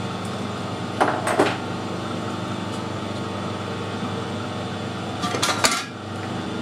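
Metal pieces clinking and clattering as they are handled: two sharp clanks about a second in and a short burst of clatter a little past five seconds, over a steady machine hum.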